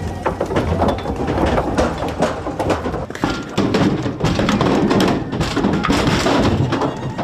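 Bison moving through a wooden loading chute into a metal livestock trailer: a dense run of irregular hoof clatter and thuds as the animals knock against the boards and metal walls.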